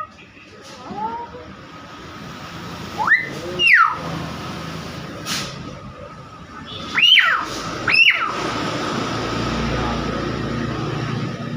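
Nias hill myna giving loud, sharp whistled calls that sweep up and then down in pitch: a pair about three seconds in and another pair about seven seconds in, with a fainter call about a second in. A low rumble builds near the end.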